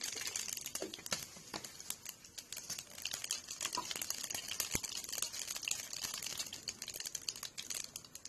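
Cumin seeds sizzling and crackling in hot oil in a kadai as a tadka is tempered, with a steady hiss and many quick, irregular pops.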